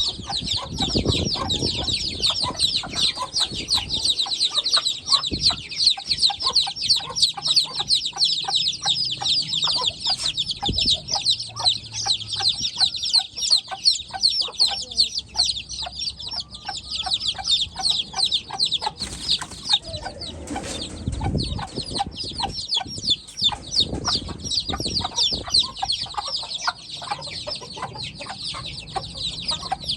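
Flock of white Heera Aseel chicks peeping: a dense, continuous chorus of short high-pitched cheeps, with a few low thumps.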